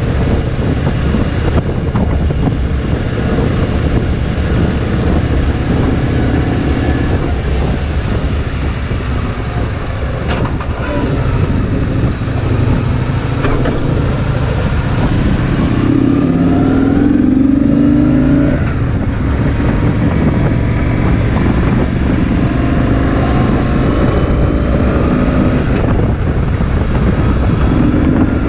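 Kawasaki VN2000 V-twin motorcycle running at road speed, with wind rushing over the microphone. Its pitch rises and falls a few times in the middle.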